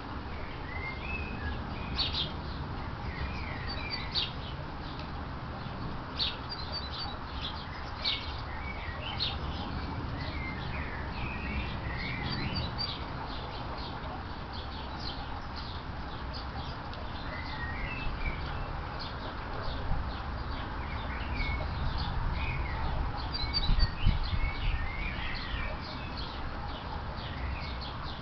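Small birds chirping in short high calls and twitters, over a low background rumble; a few louder low knocks come about three-quarters of the way through.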